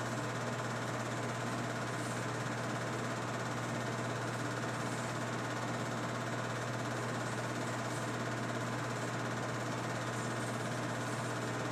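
8mm film projector running: a steady mechanical whirr and clatter of the motor and film transport, with a constant low hum.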